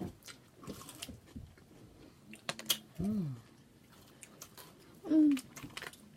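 Close-up mouth noises of eating: wet clicks from chewing and lip smacking scattered through. Two brief voiced sounds from an eater come about three and five seconds in, the second the loudest.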